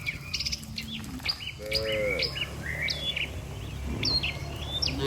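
Small birds chirping over and over, with one short cow moo about two seconds in.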